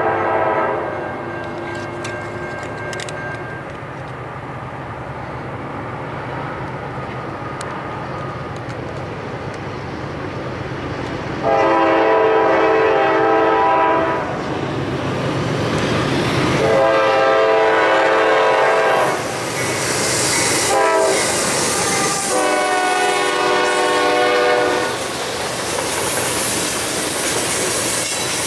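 Norfolk Southern diesel freight locomotive's air horn sounding the grade-crossing signal as the train approaches: two long blasts, a short one and a final long one, over the rumble of the engines. Near the end the freight cars roll past with wheel and rail noise.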